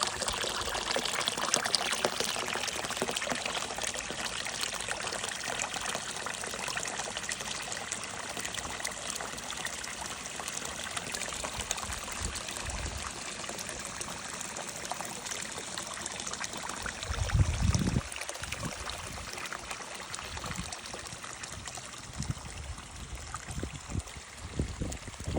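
Water of a small stream trickling and splashing steadily, with a brief low rumble about two thirds of the way through.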